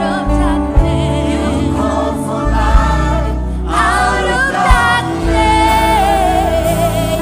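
Gospel choir singing with band accompaniment: sung lines with vibrato over a steady bass, with a sharp beat about every two seconds.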